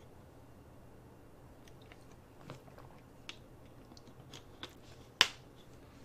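Faint scattered clicks and crinkles of a clear plastic drinking bottle as a person drinks from it and puts it down, with one sharp, louder click about five seconds in.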